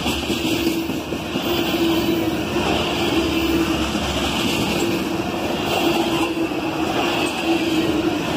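Freight train of covered hopper cars rolling past close by: the steady rumble of steel wheels on the rails, with a humming tone that swells and fades every second or two.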